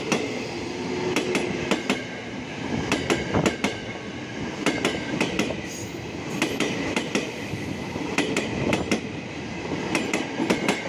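Tokyo Metro 6000-series electric commuter train (KRL) passing close by, a steady rumble with its wheels clacking over the rail joints in groups of clicks every second or two.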